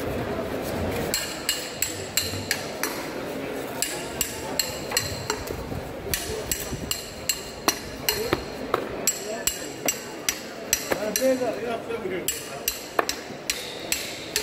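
Irregular sharp knocks with a metallic clink, a few a second, as a large knife chops through a tuna into steaks on a wooden cutting board.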